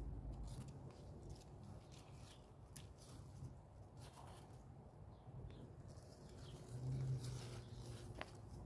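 Faint rustling and scattered small clicks and snaps from green bean plants being handled while beans are picked, over a low rumble that swells briefly about seven seconds in.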